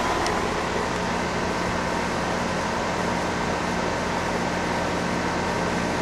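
Goodman heat pump outdoor unit running: a steady whir of moving air with a faint low hum.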